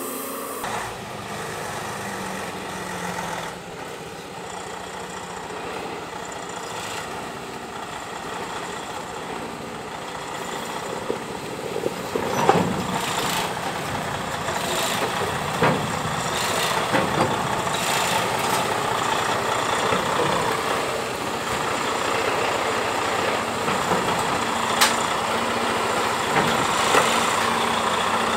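Heavy diesel machinery running steadily, getting louder, with a few sharp knocks and clunks about halfway through and again near the end.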